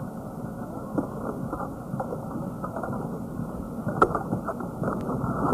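Muffled, steady background noise with scattered light clicks and knocks, the sharpest about four seconds in.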